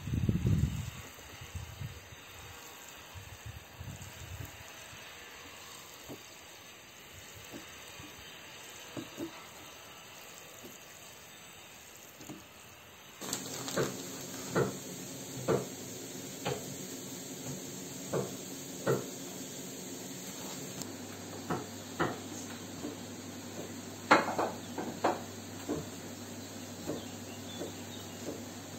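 Faint background at first, then from about 13 seconds in a steady hiss with a low hum, broken every second or so by sharp clicks and taps of kitchen utensils and dishes.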